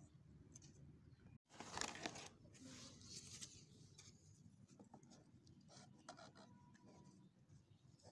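Faint rustling and scraping of corrugated cardboard panels being handled and fitted together. It is loudest from about a second and a half to three and a half seconds in, then light taps and rubs.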